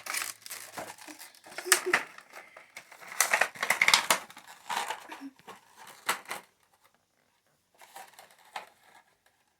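Packaging being torn open and crinkled by hand during an unboxing, in irregular rustling bursts that stop about six seconds in.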